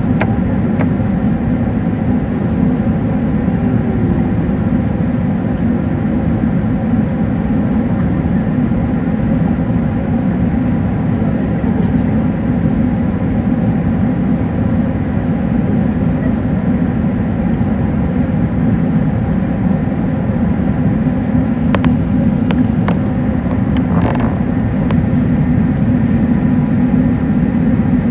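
Airbus A380 cabin noise in flight on approach, heard from a window seat over the wing: a steady low roar of engines and rushing air, with a few faint steady whining tones above it.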